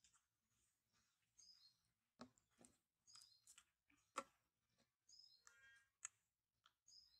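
Faint clicks and knocks of plastic bottles being handled, the sharpest about four seconds in, with short high chirps recurring every second or two.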